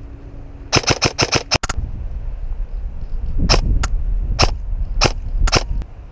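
Airsoft gun firing: a quick burst of about seven shots about a second in, then five or six single shots roughly half a second apart, over a low rumble.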